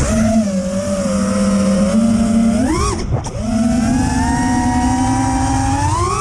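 FPV quadcopter's brushless motors (EMAX ECO 2306 1700 kV on 6S) whining steadily. The pitch rises sharply on two throttle punches, about three seconds in and again at the end, over a low rushing noise.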